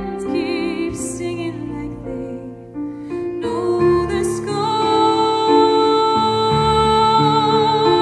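A woman singing a slow, tender song with vibrato over a soft sustained instrumental accompaniment, holding one long note through the second half.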